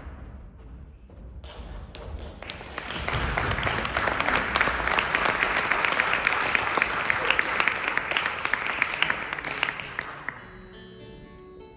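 Audience applauding, building over the first few seconds and dying away near the end. As it fades, a small string orchestra starts playing held notes.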